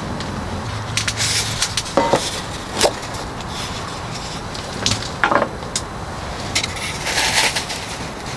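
Things being handled by hand: a scattered series of light knocks, clicks and scrapes, a few with a short ring, over a steady background rush.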